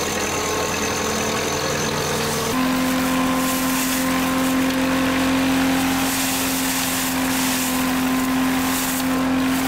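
Old threshing machine running at work as sheaves are fed into it, a steady mechanical hum with several held tones that step up slightly in pitch about two and a half seconds in.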